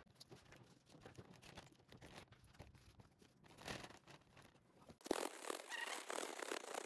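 Plastic zipper-seal bag holding fish fillets in egg wash being handled: faint crinkling and rustling of the plastic, louder and denser from about five seconds in.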